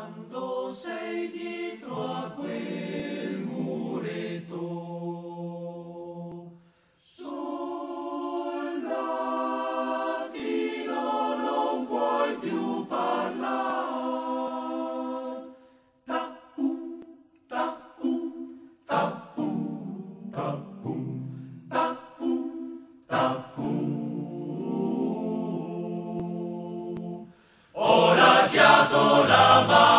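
A choir singing an Italian First World War alpine soldiers' song a cappella. The phrases break off about 7 and 16 seconds in, then come as short separate notes, and a louder full-voiced passage starts near the end.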